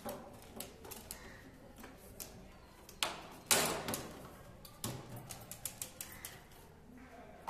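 Irregular plastic clicks and knocks as a white PVC electrical conduit pipe is handled and pressed into place on a wall, with two louder scraping rattles about three seconds in.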